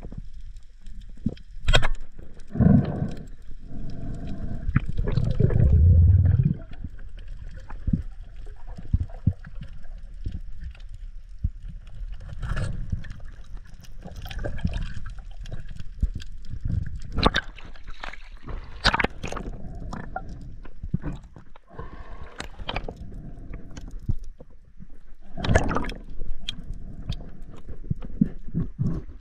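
Water sloshing and gurgling around a GoPro action camera in shallow surf, heard as an irregular muffled rumble with louder surges and scattered sharp clicks and knocks.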